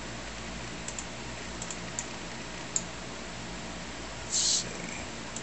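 Steady hum of a running desktop computer, with a few faint mouse clicks over the first three seconds as the partitioning tool is closed. A short, high hiss sounds about four seconds in.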